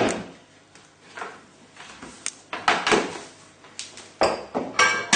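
Cookware being moved and set down on a kitchen worktop: a loud clunk at the start, then scattered knocks and clatters of pans and crockery.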